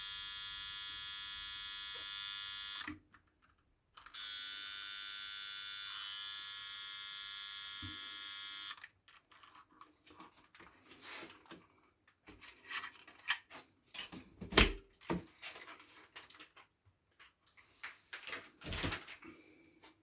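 A small electric motor running with a steady high whine, stopping for about a second near three seconds in, then running again until about nine seconds in. After it, scattered clicks and knocks of small parts being handled, the loudest knock about fifteen seconds in.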